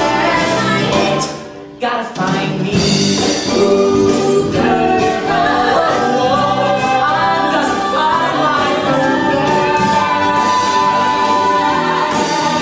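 Musical theatre number: several voices singing together over instrumental accompaniment. The music drops away briefly about a second and a half in, then comes back in full.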